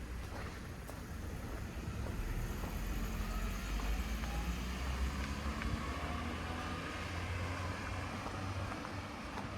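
A car engine running nearby with a steady low hum, over general street noise.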